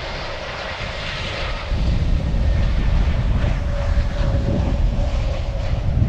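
Jet airliner turbofan engines running, a steady noise with a faint high whine, and a low rumble that grows louder about two seconds in.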